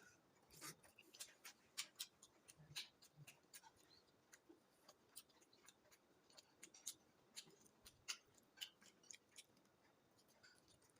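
Faint, close-up eating sounds: irregular sharp clicks and smacks of chewing, sometimes several a second.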